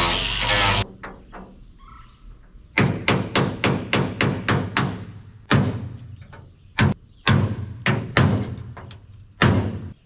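Hammer blows on the sheet-steel cab roof of a 1960s Galion 503 motor grader: a run of sharp knocks, about five a second at first, then single strikes with short pauses between them. Background music cuts off about a second in.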